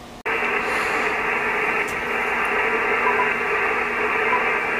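Icom IC-7300 transceiver receiving on the 20-metre band in USB mode: a steady, muffled hiss of band noise from its speaker, with a faint steady tone in it, starting abruptly a moment in.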